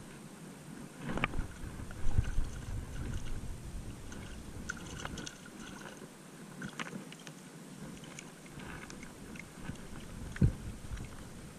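Shallow seawater splashing and sloshing as a small hooked fish is worked in and lifted out by hand, with wind buffeting the microphone in low gusts, mostly in the first few seconds. Scattered light clicks, and a single sharp knock about ten seconds in.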